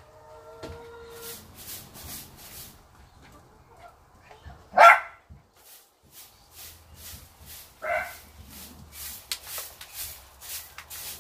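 A dog barks twice, a loud single bark about five seconds in and a quieter one near eight seconds. Under the barks run the repeated scratching strokes of a broom sweeping a dirt floor.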